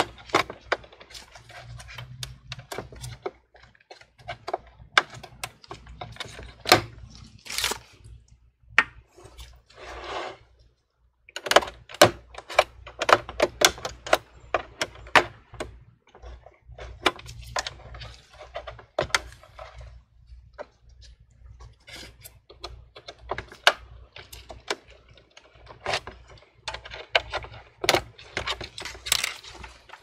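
Irregular clicks, taps and short scrapes of a thin metal pry tool against the plastic frame and LCD panel edge of an all-in-one computer as the screen is worked loose.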